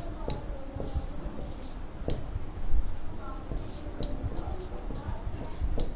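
Marker squeaking on a whiteboard in a string of short, quick strokes as numbers are written out.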